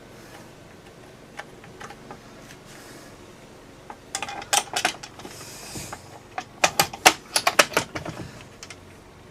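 Homelite XL-12 chainsaw recoil starter clicking and ratcheting as its pawls are engaged into the flywheel teeth: scattered light clicks, then two quick runs of sharp clicks, the second near the end the loudest.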